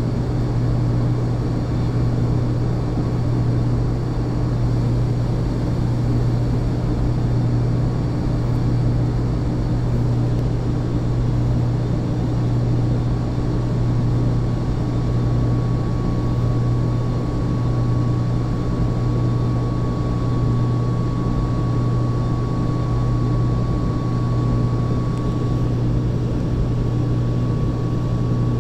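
Steady drone of running industrial machinery: a strong low hum with a thin, faint high whine that comes in about halfway through and holds.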